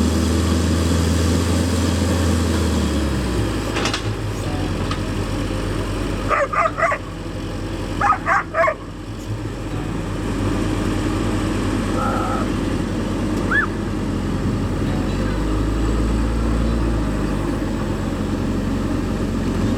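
A dog barking in two short bursts of a few barks each, over a low engine running steadily.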